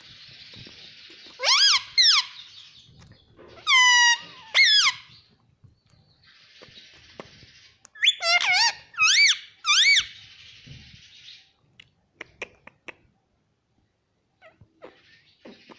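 Pet ring-necked parakeet calling: three clusters of loud, shrill squawks that sweep up and down in pitch, with stretches of raspy chatter between them, then a few light clicks near the end.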